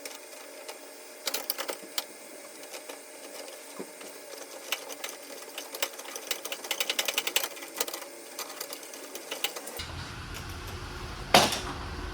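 Hand tools working on rusted side-step bolts: irregular metallic clicks and knocks, with a fast, even run of clicking around the middle. About ten seconds in, the background changes to a low rumble and a single sharp knock follows.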